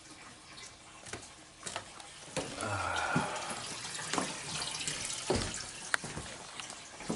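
Water running and splashing, louder from about two and a half seconds in, with scattered short knocks and clicks.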